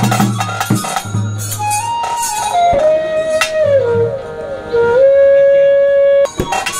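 Ritual wind instrument playing a slow, wavering melody with bends and glides in pitch, holding one long note near the end, over a few scattered drum strokes; fast drumming starts again right at the end.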